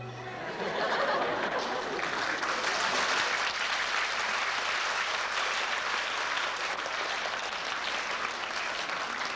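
Audience applauding, starting about half a second in as the ensemble's last note dies away, and holding steady.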